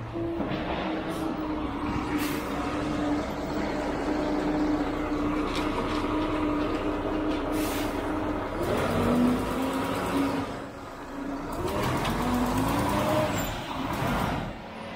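Concrete mixer truck's diesel engine running as the truck drives slowly onto the site, steady at first, then dropping and climbing again in pitch about two-thirds of the way through. A few short hisses of air, like air brakes, break in over it.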